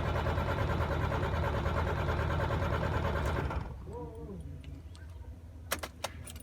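MAN TGA 26.480's six-cylinder diesel engine running steadily just after starting, then stopping abruptly about three and a half seconds in. A few sharp clicks follow near the end.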